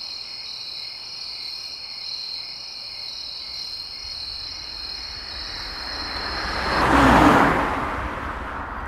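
Steady high-pitched insect chorus, like crickets, that cuts off suddenly about seven seconds in. A rushing swell builds over the last few seconds, peaks as the chorus stops, then fades.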